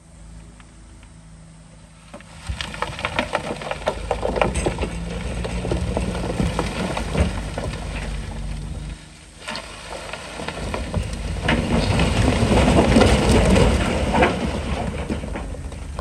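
Heavy diesel machinery running while a mass of loose rock tumbles and rattles down. The rock clatter starts about two seconds in, eases briefly around nine seconds, then surges again louder before fading at the end.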